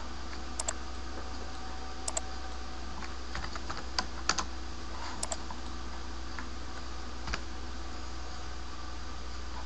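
Clicks of a computer mouse and keyboard: several paired clicks about a tenth of a second apart, a quick cluster around four seconds in and a single click near seven seconds. They sit over a steady low hum.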